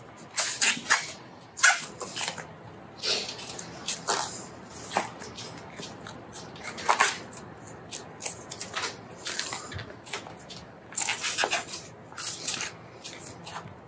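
Supacaz bar tape being stretched and wrapped around road-bike drop handlebars: irregular short crackling and rustling as the sticky tape is pulled and pressed down.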